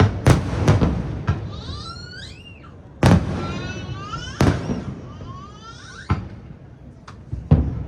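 Aerial firework shells bursting, about eight sharp booms that echo away, two of them louder about three and four and a half seconds in. Between the bangs come clusters of wavering whistles that glide up and down.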